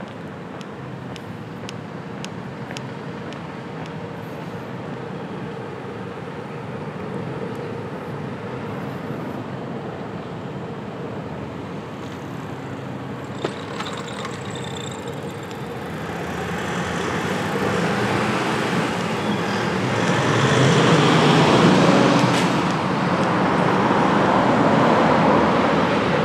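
City street traffic at night: a steady low hum with a faint held tone, then road vehicles passing close by, loudest about two-thirds of the way through and again near the end.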